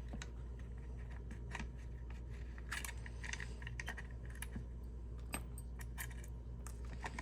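Small metal clicks and scraping as an Allen key works the magazine release out of an airsoft rifle's receiver, with scattered light ticks and a scrape about three seconds in, over a steady low hum.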